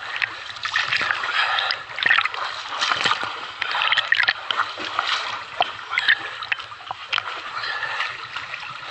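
Water splashing and sloshing close to the microphone as a swimmer strokes through a river, in irregular, uneven splashes.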